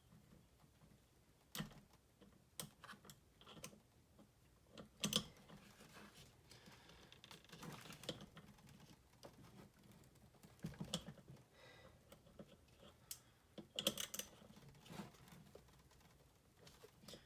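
Scattered light clicks and taps, irregular, with a few sharper knocks about five seconds in and again near fourteen seconds in, as of small parts and tools being handled.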